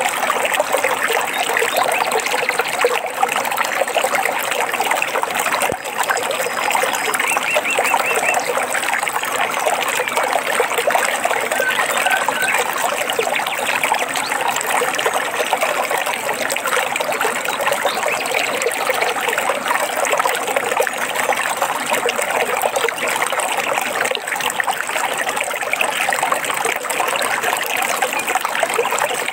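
Steady trickling and babbling of a stream. A few faint bird chirps come through about a third of the way in.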